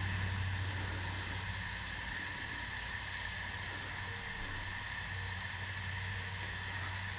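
Garden hose spray nozzle spraying water in a steady hiss, with a low steady hum underneath.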